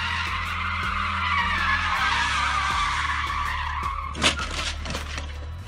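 Tyres of a white BMW 3 Series skidding as it slides in circles, with the engine running under a long wavering squeal. About four seconds in the squeal fades and there is one sharp bang, the loudest thing heard, followed by a few smaller clicks.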